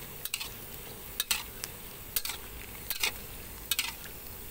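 Metal spatula scraping and clacking against a metal pan about once a second as dried sticky rice is stirred and fried in a little oil, over a low, steady sizzle.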